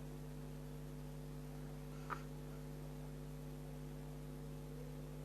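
Steady low electrical hum, with one faint tick about two seconds in.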